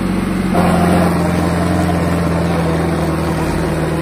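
Diesel engines of two Sonalika tractors pulling against each other in a tug-of-war. They rise to full throttle about half a second in, then run hard and steady under heavy load.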